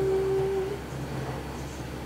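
A woman humming a single held note that ends under a second in. A faint low steady hum remains in the room.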